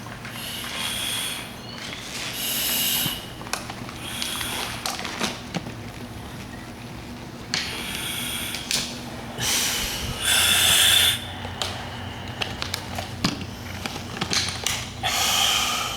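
Firefighter breathing through an SCBA face piece: a string of hissing breaths, each under a second, with short gaps between them. Sharp clicks and rattles of gear being handled come in between.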